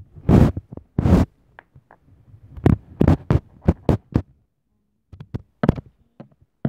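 A golden plastic toy egg, frozen solid with ice inside, is knocked and banged against a hard surface to crack it open. The sound is a run of irregular hard knocks and thumps: two heavy ones in the first second, a quick cluster of about six a few seconds in, then a last single knock near the end.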